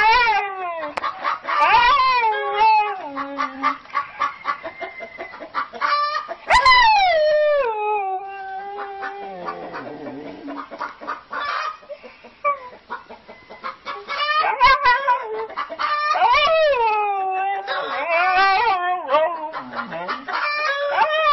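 Animal calls: a run of loud, pitched squawks and calls, several falling in pitch, with a quieter stretch midway.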